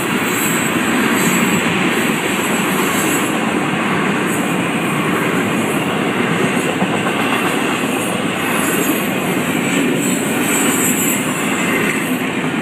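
Florida East Coast Railway freight train rolling past at a grade crossing: a steady, loud rumble of the cars' wheels on the rails.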